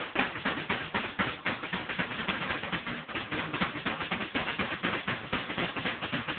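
Drum kit played fast: a dense run of stick hits on drums and cymbals, several strokes a second with no pause.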